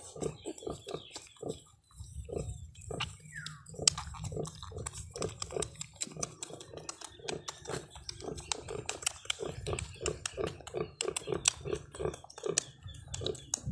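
A nursing sow grunting in a quick, even rhythm, about three grunts a second, while her newborn piglets suckle with wet sucking and smacking clicks. A brief falling squeak comes about three seconds in and a sharp click a second later.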